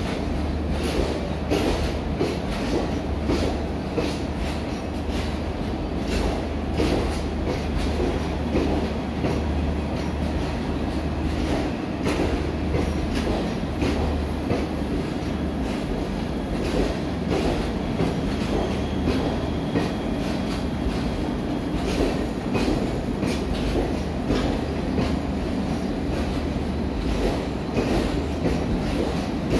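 East Coast Express's blue ICF passenger coaches rolling past along the platform: a steady rumble with frequent clicks of the wheels over the rail joints.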